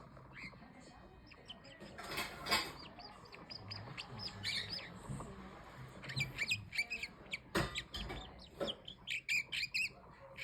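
Red-winged parrot chirping: quick runs of short, high chirps that come in clusters, with a couple of brief rustling noises between them.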